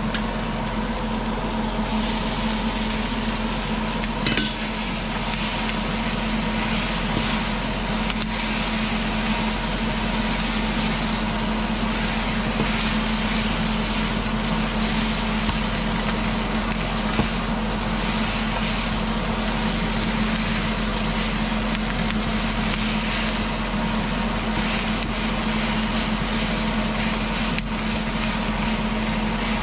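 Beef sizzling steadily as it fries in a hot pan, over a constant low hum.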